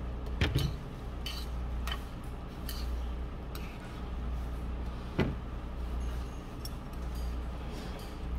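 Metal chopsticks clicking and scraping against a bowl as noodles are mixed and lifted, in scattered single clinks with the sharpest about five seconds in, over a steady low hum.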